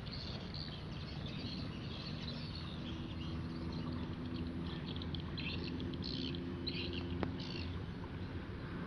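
Rice-paddy evening ambience: birds chirping in short, quick bursts, thickest in the second half, over a steady low hum.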